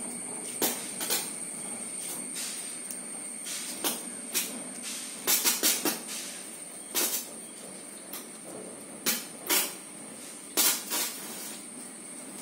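Crinkling and crackling of a thin plastic grafting strip as it is stretched and wound tight around a grafted mango seedling stem, in irregular sharp bursts. A steady high insect hiss runs underneath.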